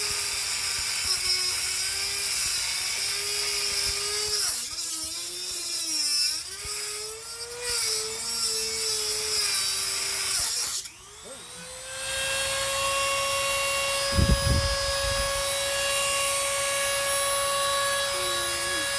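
High-speed electric power tool running with a steady whine, its pitch sagging and wavering as it bears down cutting metal on a stuck bicycle pedal. It slows and drops out briefly about halfway through, then runs on steady at a slightly higher pitch. There are a couple of low thumps a little later.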